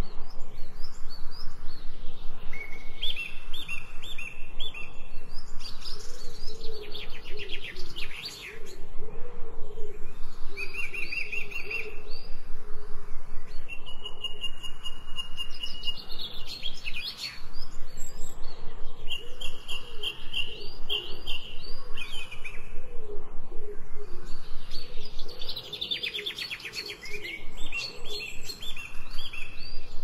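Birdsong from several birds: clear whistled notes held at steady pitches, a quick run of rapid notes about every ten seconds, and a lower warbling call underneath.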